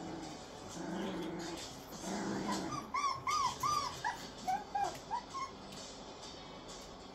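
Puppies playing: low growls in the first couple of seconds, then a run of about ten short, high, arching whimpers and yips starting about three seconds in.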